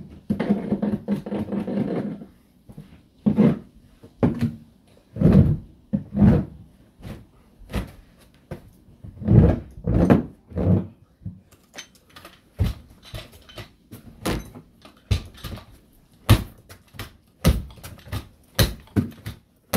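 Irregular knocks and taps from carpet being fitted on a staircase. Dull, heavy thuds come first, then quicker, sharper clicks and taps through the second half.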